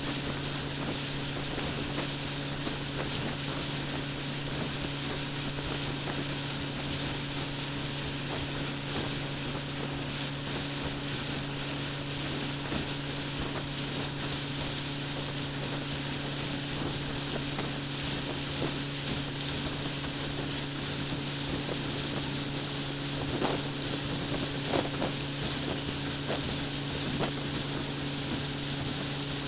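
Small ferry boat's engine running steadily, a constant low drone with water and wind hiss.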